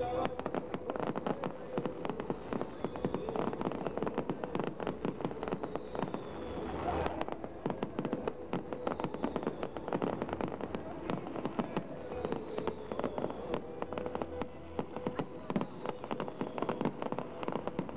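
Fireworks going off in a dense, rapid crackle of many small pops and bursts, with a high whistle falling in pitch every few seconds.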